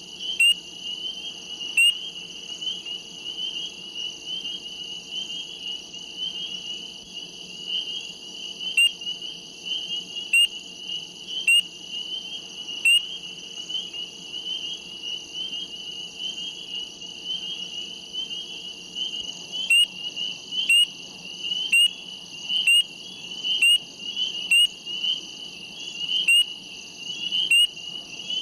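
Chorus of small frogs calling in a steady, dense, high trill, with loud, short, rising peeps from nearby frogs every second or two. The peeps come more often in the latter part.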